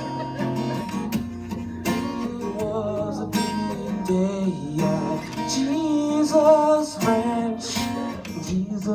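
Acoustic guitar strummed steadily, with a voice singing over it through the middle stretch.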